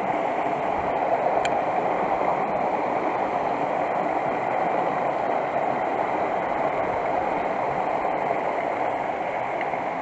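Creek water running over rocks into a pool: a steady rushing, gurgling sound.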